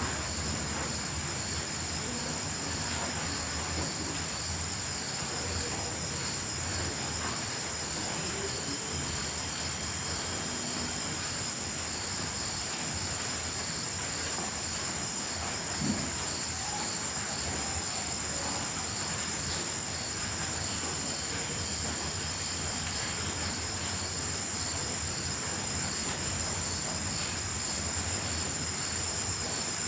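Night chorus of crickets and grasshoppers: a steady high-pitched trill, with another insect chirping in an even pulse of about two a second. One brief low thump about halfway through.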